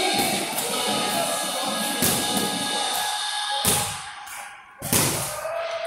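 Background music playing, with a few sharp thuds of boxing-gloved punches landing, about two, three and a half and five seconds in; the music drops away in the second half.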